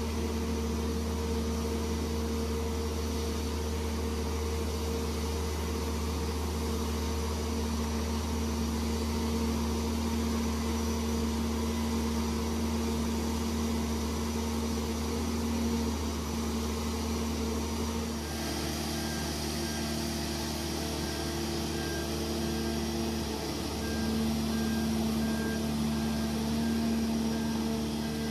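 Boat travel lift running steadily as it hoists a catamaran on its slings: a constant low engine and hydraulic drone. From about two-thirds of the way in the drone gets louder and a repeated warning beep sounds as the lift drives with the boat.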